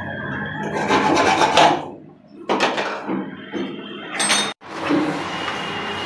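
Hand hacksaw rasping back and forth through a pipe in rough, uneven strokes. The sawing pauses about two seconds in and cuts off abruptly a little after four and a half seconds, followed by steadier scraping.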